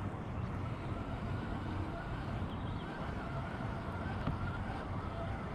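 Steady outdoor background noise: a low rumble with a faint hiss and no distinct events.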